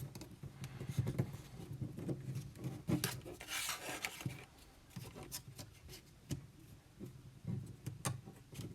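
Sheet of printer paper being folded and creased by hand: scattered rustles and crinkles, with a longer scraping stroke of a crease being pressed down about three and a half seconds in.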